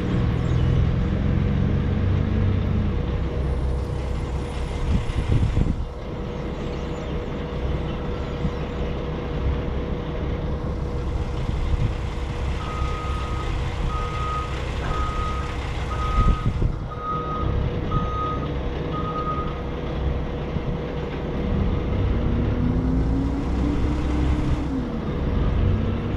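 Heavy vehicle engine running, revving up and down a couple of times, with a reversing alarm beeping seven times about once a second midway, plus a couple of knocks.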